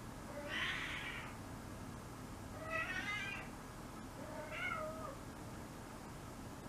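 A five-month-old female kitten in heat calling: three drawn-out meows about two seconds apart, the first breathy and the last falling in pitch. This is estrus calling.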